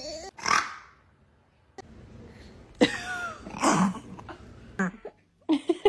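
A baby hiccuping: a few short, sudden hics spaced a second or so apart.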